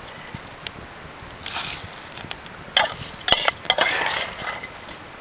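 Cooking sounds at a wood campfire: a few sharp clicks and knocks, with short scraping and rustling bursts of handling around the steel pot, about a second and a half in and again near the four-second mark.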